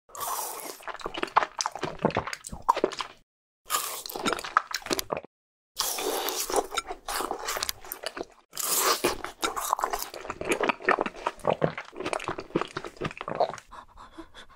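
Crunching and chewing sound effects, as of an ice-cream bar being bitten and eaten, in four bursts with short silent gaps between them.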